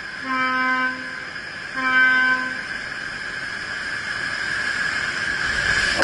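Ship's horn sounding two short blasts about a second and a half apart during a cargo ship's side launch. After them comes a rising rush of water as the launch wave surges toward the bank, breaking over the microphone at the very end.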